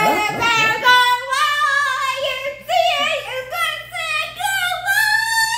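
A young girl singing a high-pitched, wordless victory sing-song, with held notes sliding up and down, celebrating a win. It opens with a burst of laughter.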